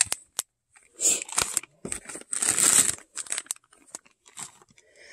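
Crinkling of a clear plastic toy bag and rustling of packaged items as a hand rummages through a drawer, in irregular bursts that are busiest in the middle.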